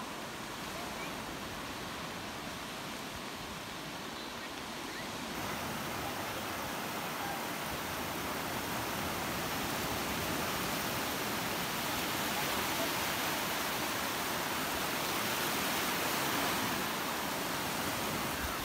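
Sea surf washing in over a shallow beach, a steady rushing hiss that gets louder about five seconds in.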